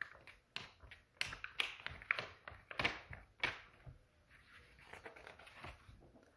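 A book page being flipped rapidly back and forth, giving a run of short, sharp paper flaps about two a second. Softer paper rustling follows as the page is turned over to the next spread.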